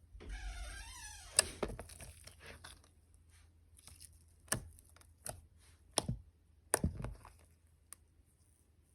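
Slime being handled and pressed: a brief squeaky, wavering sound near the start, then scattered sharp clicks and taps.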